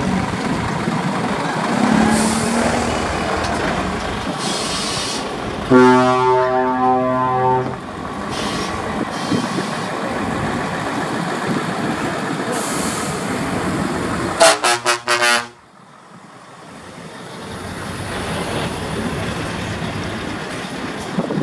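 Heavy trucks' diesel engines running as the trucks drive slowly past. An air horn sounds for about two seconds about six seconds in, and a quick burst of short horn toots comes about fifteen seconds in.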